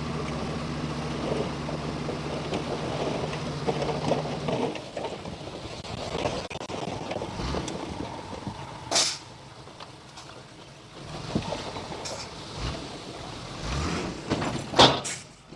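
Heavy construction machinery: a diesel engine running steadily, cutting out abruptly about four and a half seconds in. Scattered clanks follow, then three short, sharp, loud bursts of hiss, one near the middle and two close together near the end.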